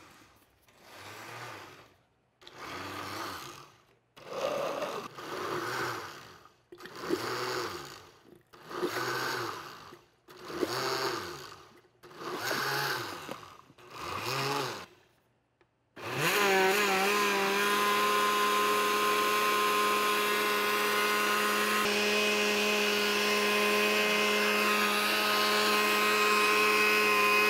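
Countertop blender puréeing steamed pumpkin, cream and water into a thick soup: first pulsed in short bursts about every two seconds, each spinning up and winding down, then run steadily for about eleven seconds before it cuts off.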